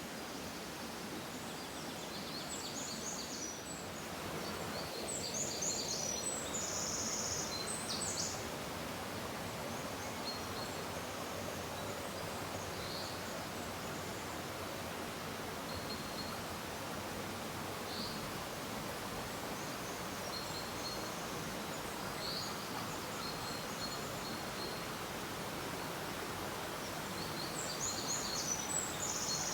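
Small birds chirping in short, high-pitched phrases that come in several clusters, over a steady rustling background hiss.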